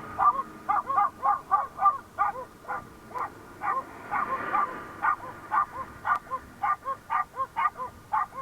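An animal calling over and over in short rapid calls, two or three a second.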